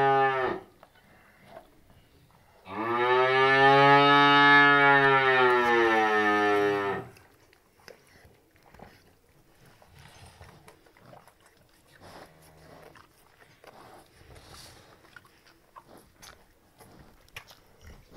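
Cattle mooing: the tail of one moo right at the start, then a second long, loud moo of about four seconds beginning a couple of seconds in. After it come faint wet clicks and slurps of calves lapping bran mash from a rubber bowl.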